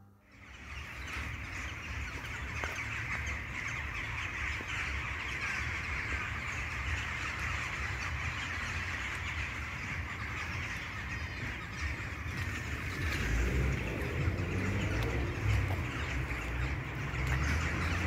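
A large flock of birds calling all at once from the trees, a dense continuous din of chirps and calls, over a low rumble.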